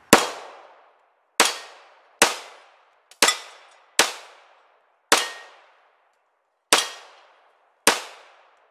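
Eight pistol shots from a Magnum Research Desert Eagle 1911G, fired one at a time at an uneven pace, emptying its eight-round magazine. Each shot is sharp and followed by a short, fading echo.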